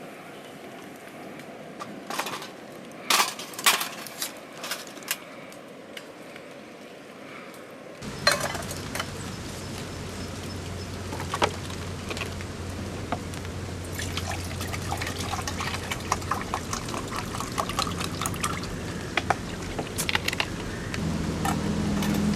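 Rain and dripping water with scattered sharp clicks. About eight seconds in the sound cuts to a louder mix of dense ticking and crackling over a low steady hum.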